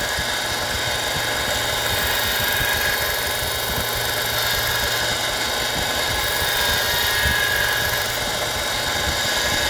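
Harbor Freight 1-inch belt sander running steadily with a leather stropping belt, a pocket knife blade being stropped on it. A constant motor hum.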